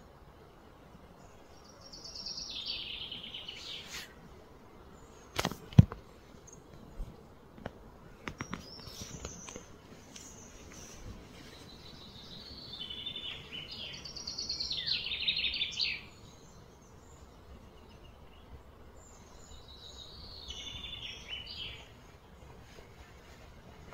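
A songbird singing in three bursts of quick, warbling chirpy phrases. About six seconds in there is a sharp knock, the loudest sound, followed by a few lighter clicks.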